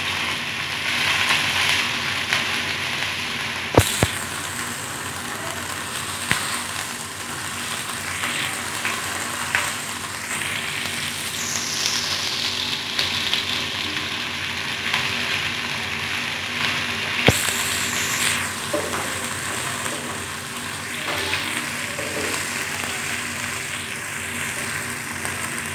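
Ginger-garlic paste sizzling steadily in hot oil in a nonstick kadhai, stirred with a wooden spatula. Two sharp knocks stand out, one a few seconds in and one about two-thirds of the way through.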